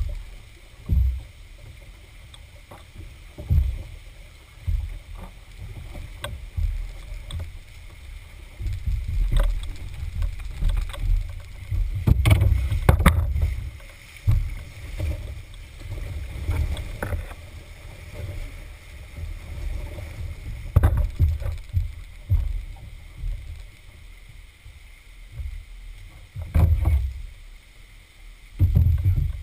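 Canoe moving through floodwater, picked up by a camera taped to its bow: irregular low thumps and knocks of paddle strokes and water against the hull, with a few sharp clicks and a busier stretch about halfway through.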